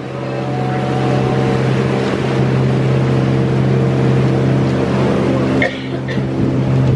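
A small passenger boat's engine running steadily underway: a constant low drone with overtones, over a rush of water and wind.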